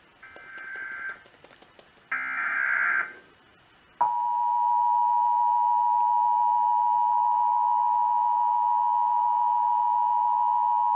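Emergency Alert System test: two short, roughly one-second bursts of warbling SAME header data tones, then, about four seconds in, the steady two-tone EAS attention signal (853 Hz and 960 Hz sounded together) starts and holds without a break.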